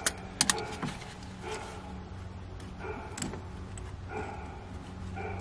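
Two sharp clicks near the start as the evap hose is worked onto the canister close valve, then a few short animal calls, about a second apart, over a steady low hum.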